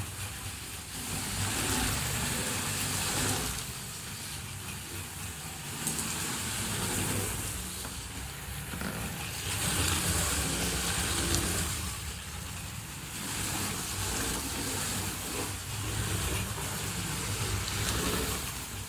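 Lego RC car's Power Functions L electric motors whirring through their gearing, swelling and dropping in repeated bursts of a few seconds as the car is throttled on and off while drifting.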